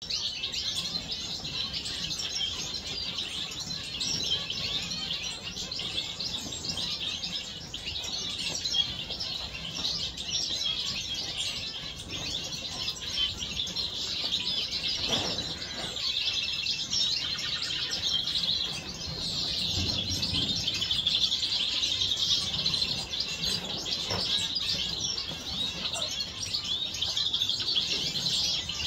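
A mixed flock of small aviary finches, zebra finches among them, chirping and calling continuously over one another in a dense, high-pitched chatter.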